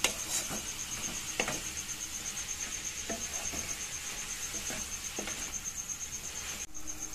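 Wooden spatula stirring shredded cabbage in a nonstick wok: scattered soft scrapes and knocks of the spatula against the pan.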